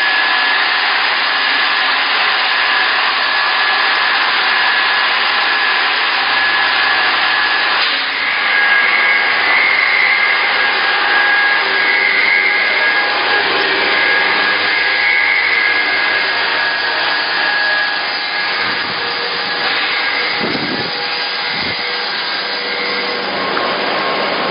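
Steady loud din of milk production-line machinery, a continuous noisy hum with a thin high whine running through it.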